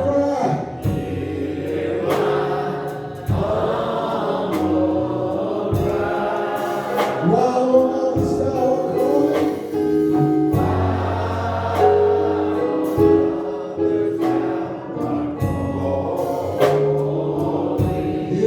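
Gospel choir singing with instrumental accompaniment: long held notes over a steady bass, with occasional sharp percussive hits.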